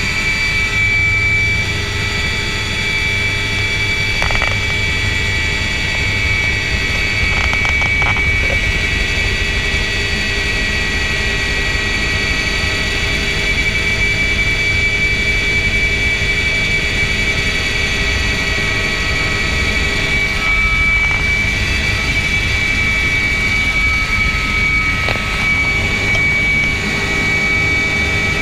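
Helicopter turbine engine and main rotor heard from inside the cabin: a steady, loud low rumble under a constant high-pitched turbine whine.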